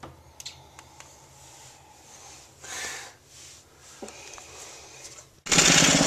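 Faint handling noise with a few small clicks and a brief rustle, then suddenly, near the end, a snowblower's small engine running loud and steady.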